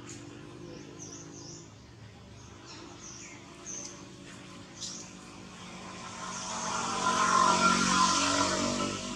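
Small birds chirping in the first half, then a passing motor vehicle that swells up from about six seconds in and is loudest near the end.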